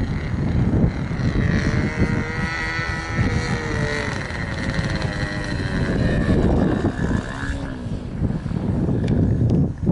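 Radio-controlled model airplane flying past overhead, its motor drone shifting up and down in pitch as it passes, then fading near the end. Heavy wind buffets the microphone throughout.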